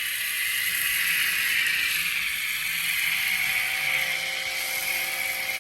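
Bauer 2300 pressure washer spraying a steady hiss of water and foam through its foam attachment, with a faint motor whine under the spray; it stops abruptly at the end.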